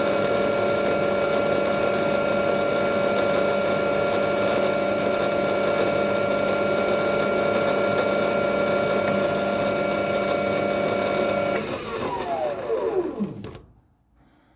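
Metal lathe running with a steady motor whine while power feed drives a light dry cut on the workpiece. About twelve seconds in the motor is switched off and the whine falls in pitch as the lathe spins down to a stop.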